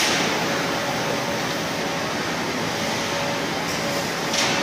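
Steady rolling noise from the wheels of a manual steel-coil trolley pushed across a concrete floor under a heavy coil, with a faint steady hum.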